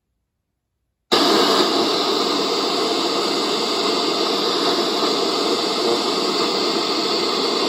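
FM radio tuner on an untuned frequency, giving a steady static hiss from its small speaker; it comes on about a second in.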